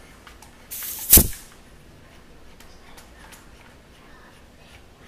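A short hiss, then a loud sudden burst of escaping compressed air about a second in, as the HPA air cylinder is unscrewed from the Tippmann Omega airsoft rifle and the trapped high-pressure air vents. Faint clicks of handling follow.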